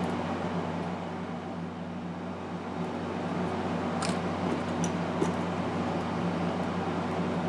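Steady low mechanical hum, like a fan or motor running, with a few light clicks about four and five seconds in.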